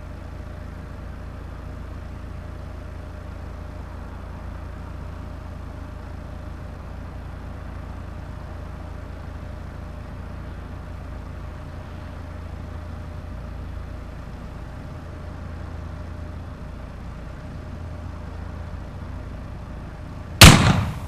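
A steady low rumble with a faint hum, unchanging for about twenty seconds. Near the end comes one very loud sudden crash, and a second, smaller hit follows just after.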